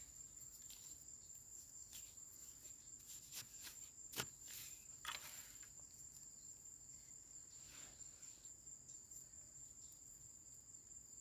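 Steady, faint, high insect trill, typical of a cricket, with a few soft scrapes and one sharp click from bare hands digging in soil, the click about four seconds in.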